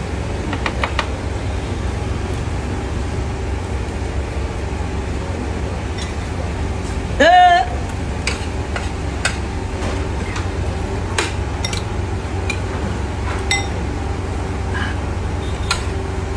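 Scattered clinks of plates and dishes during eating, over a steady low hum of background traffic. About seven seconds in, a short loud rising shout.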